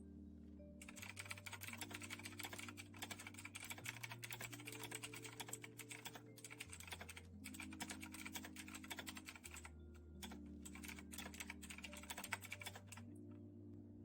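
Fast typing on a loud Razer BlackWidow Quartz mechanical keyboard, a dense run of key clicks with brief pauses and a stop near the end. Soft background music plays under it.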